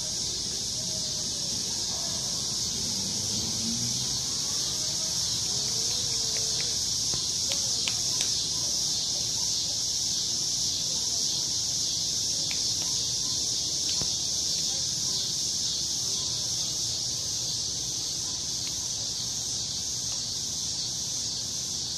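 A steady, high-pitched chorus of insects, with faint voices in the first few seconds.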